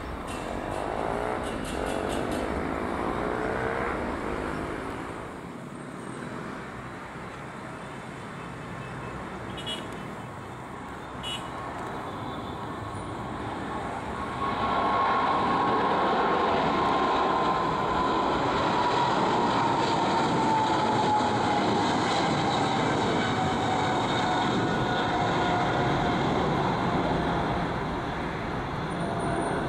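Boeing 777-300ER's twin GE90 turbofans at takeoff power. Jet noise is quieter in the first half, then loud and steady from about halfway as the jet rolls and climbs out, with a whine that slowly falls in pitch as it passes.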